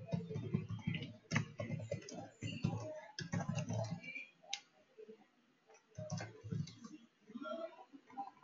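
Computer keyboard typing in quick runs of keystrokes, with a pause of about a second and a half around the middle.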